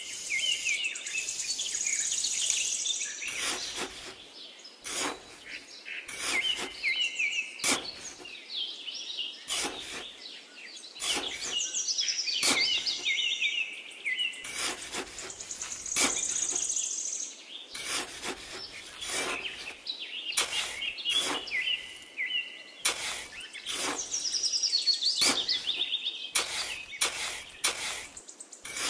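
Birds chirping and singing in repeated high, quick phrases, with many short scrapes and knocks of a small hand trowel digging into sand.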